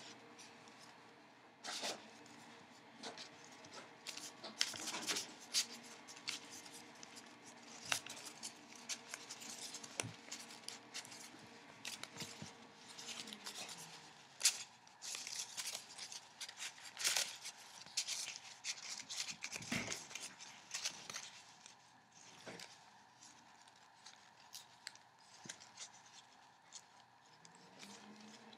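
Sheets of paper rustling and crackling as hands fold, crease and fit together origami units, in an irregular run of small crinkles with a few sharper crackles.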